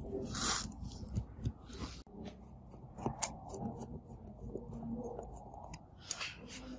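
Small phone screws being driven with a precision screwdriver into the metal brackets of a smartphone: light clicks and scrapes of the bit, with a few short scratchy bursts.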